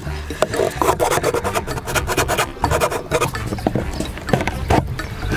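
Hard plastic scraping and rasping in quick, irregular strokes: a white plastic valve fitting being worked by hand into a hole drilled in a grey PVC pipe.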